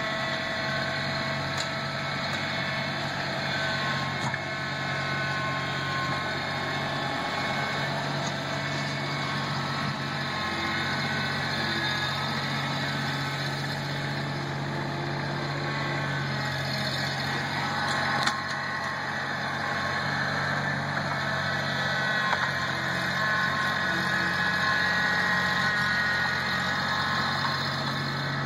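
Mahindra compact tractor's diesel engine running steadily while the front loader works the soil, getting a little louder in the last few seconds. A single sharp knock about two-thirds of the way in.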